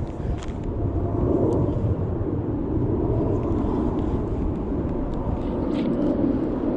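Steady engine drone from passing traffic, growing louder about a second in and holding.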